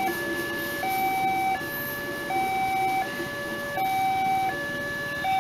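Railway level-crossing warning alarm sounding from the signal post's loudspeaker: an electronic two-tone signal, a higher and a lower tone alternating about every three-quarters of a second, warning that a train is crossing while the barrier is down. The noise of the passing passenger train's coaches runs underneath.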